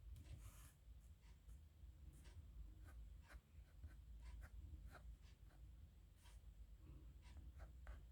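Faint scratching of a dip nib pen on paper, a quick series of short strokes, over a low steady background hum.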